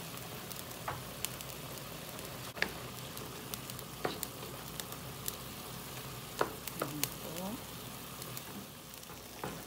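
Chicken, onion and shiitake simmering in a soy-sauce broth in a frying pan, giving a steady sizzling hiss. A wooden spoon stirs through the pan, with short clicks now and then as it knocks and scrapes against the pan.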